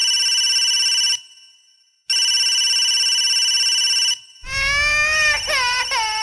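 A telephone ringing: two long rings of about two seconds each with a short pause between. About four and a half seconds in, a high-pitched voice starts, its pitch sliding up and down.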